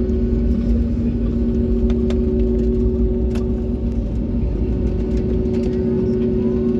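Airliner cabin noise: the aircraft's engines drone steadily under a loud low rumble, with two constant hum tones and no change in power.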